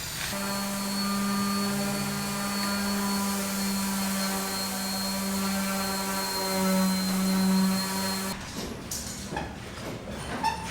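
An electric motor, such as a power tool or vacuum, runs at a steady pitch for about eight seconds, then cuts off abruptly. A few light knocks follow.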